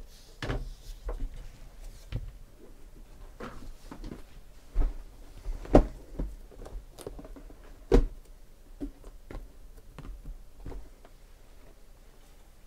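Sealed cardboard trading-card boxes being handled, slid and set down: a string of soft knocks and thumps, the loudest about six and eight seconds in.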